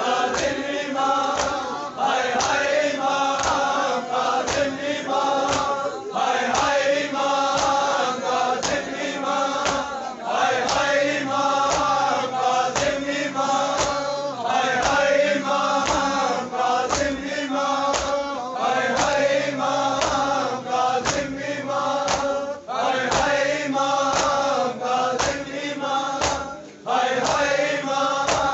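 A crowd of men chanting a mourning lament (noha) together, with a steady beat of hands striking bare chests (matam) about one and a half times a second.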